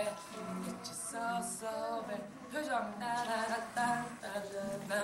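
Teenage boys singing a pop tune a cappella, with no drums or bass backing.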